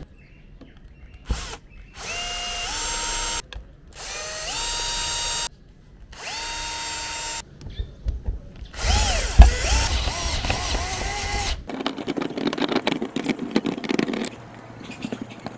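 Cordless drill with a step bit running in four short bursts through the van's roof panel, its whine climbing in pitch as each burst starts. The last burst wavers in pitch as the bit cuts through body filler on the roof. Then irregular scraping and clicks near the end as the hole is worked by hand.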